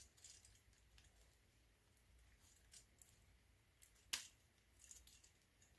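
Faint clicks and light rattling of a plastic Transformers toy's hinged parts being worked by hand during transformation, with one sharper click about four seconds in.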